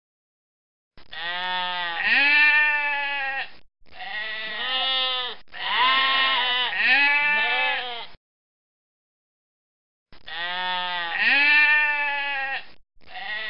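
Goats bleating: a series of long, wavering bleats in two groups, with a sudden silent gap of about two seconds in the middle.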